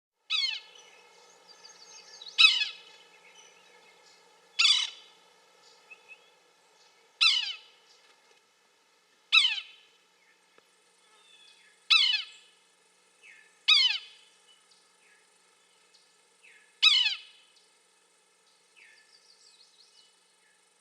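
Yellow-bellied sapsucker calling: eight short calls, each falling in pitch, repeated every two to three seconds, with fainter calls in between.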